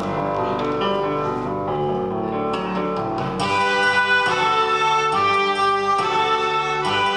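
A children's melodica ensemble playing a tune in sustained notes, with clarinets among them. About halfway through, the music grows louder and brighter.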